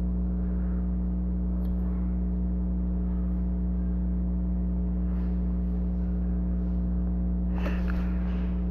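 Steady low electrical hum, a mains buzz with a stack of even overtones that never changes. Faint small handling scrapes come in near the end.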